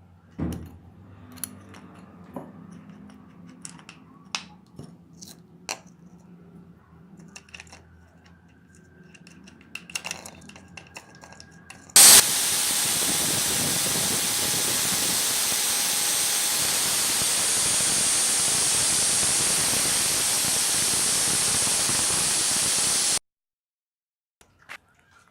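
Scattered light clicks and taps of handling. Then, about halfway through, an aerosol spray can starts spraying with a loud, steady hiss that lasts about eleven seconds and cuts off suddenly.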